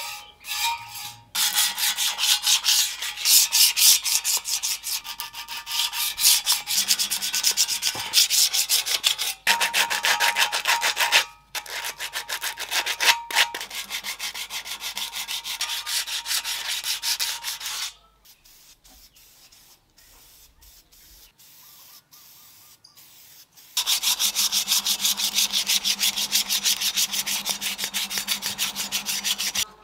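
Sandpaper rubbed by hand in rapid back-and-forth strokes on the metal tubes of a BMX frame, wearing off old paint. The sound comes in several takes with abrupt cuts, and there is a much quieter stretch of rubbing about two-thirds of the way through.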